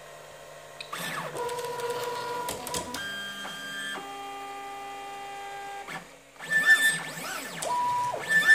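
Three stepper motors driving a 3D printer's bed along the Z axis at high speed. From about a second in they whine in steady tones that jump to new pitches as each move changes, and in the last few seconds the pitch sweeps up and down as the bed speeds up, slows and reverses.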